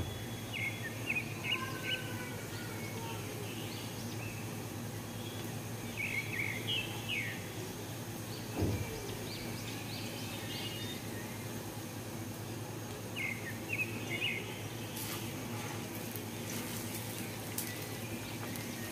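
Egg-dipped bread frying in hot oil in a pan with a steady low sizzle over a hum, and a burst of crackling near the end as a second dipped slice goes into the oil. A bird chirps in three short bouts, and there is a single knock about nine seconds in.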